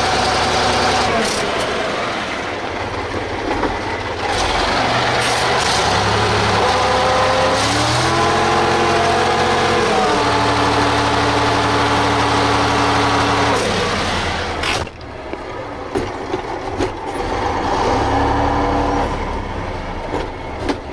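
MAZ-5551 truck's V6 diesel engine revving hard under load in first gear. The loaded truck is stuck in a muddy field with its wheels slipping. The revs climb about eight seconds in and hold high, drop sharply near the fifteen-second mark, then rise again.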